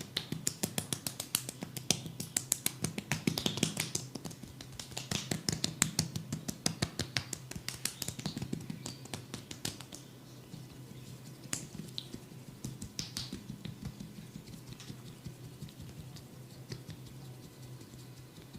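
Quick sharp taps and clicks of a percussive head massage, about four or five a second for roughly the first ten seconds, then only now and then.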